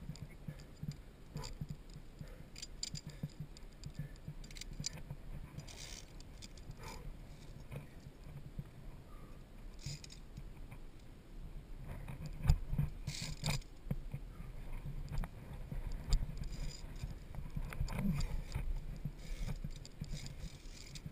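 Via ferrata carabiners clinking and scraping along the steel safety cable, with irregular scuffs of hands and boots on limestone over a steady low rumble. A sharp knock about twelve seconds in is the loudest sound.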